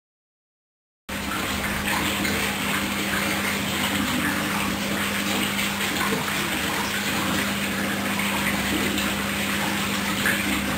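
Hoover washing machine rinsing on the wool cycle: water running through the machine with a steady hum, starting suddenly about a second in.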